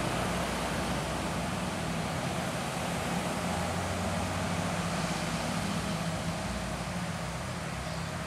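Steady low engine hum with a broad rushing noise, typical of motor traffic, fading slightly near the end.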